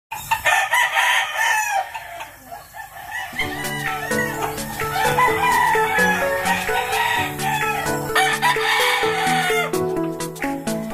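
A rooster crows near the start. About three seconds in, background music with a stepping, plucked bass line comes in, and further calls sound over it.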